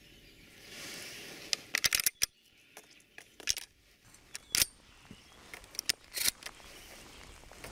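Shotgun shells being pushed one by one into a semi-automatic shotgun's magazine tube, giving sharp metallic clicks: a quick cluster about two seconds in, then single clicks roughly a second apart.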